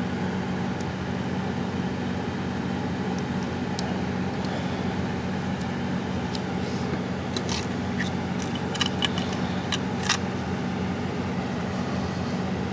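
Small plastic clicks and taps of a Dell mouse's circuit board, cord and shell being handled and fitted back together, clustered between about six and ten seconds in. They sit over a steady low background hum.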